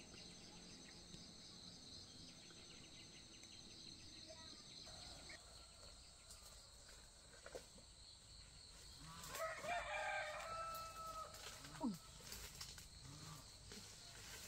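A rooster crowing once, about nine seconds in, over a faint steady high chirring of insects.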